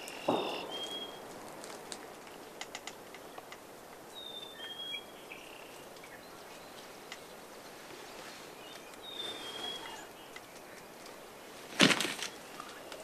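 A small bird's short, high whistled call, repeated three times about four to five seconds apart, over faint outdoor rustling and small clicks. A loud, sudden rustling burst comes near the end.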